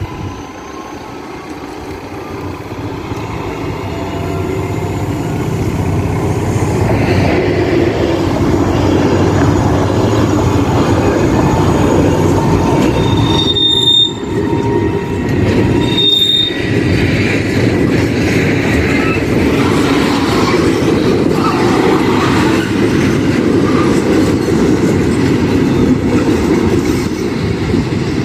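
ÖBB diesel locomotive hauling a track-maintenance train past at close range: engine running and wheels rumbling on the rails, growing louder over the first several seconds and then staying loud as the wagons roll by. Short high wheel squeals, twice about two seconds apart around the middle.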